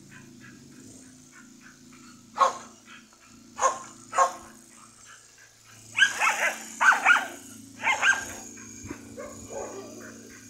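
Dog barking: three sharp single barks, then a quick run of about seven barks in the second half, with softer barks near the end.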